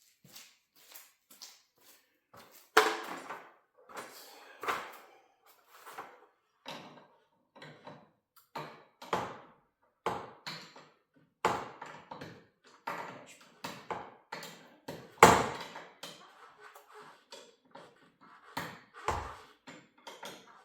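Irregular sharp metal knocks, taps and clanks from hand work on garage door torsion spring hardware, about one or two a second, with two louder clanks about three seconds in and about fifteen seconds in.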